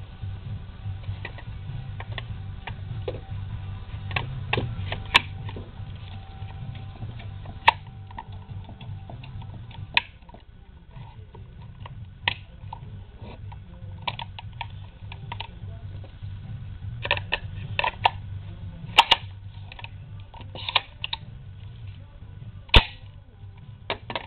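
Sharp metallic clicks and clacks of a Smith & Wesson M&P 15-22 .22 rifle's parts being handled and fitted during takedown, irregular and bunched more closely in the second half, with one loud snap near the end. Faint rock music plays underneath.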